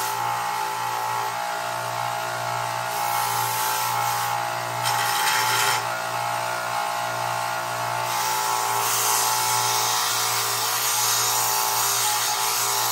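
Belt grinder with a zirconia abrasive belt grinding mill scale off a piece of steel: a steady motor hum under a hissing grind. The grind grows louder for about a second at five seconds in, and again from about eight seconds on.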